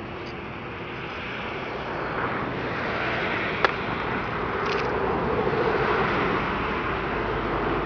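Boeing 767 jet engines running at take-off power during the take-off roll, a steady jet noise that slowly grows louder. A single sharp click is heard about three and a half seconds in.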